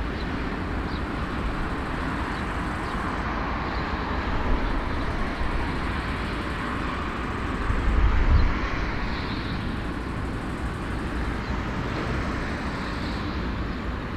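Steady, distant jet engine noise of a four-engine Airbus A340-300 taxiing on an airport apron, with a brief louder low rumble about eight seconds in.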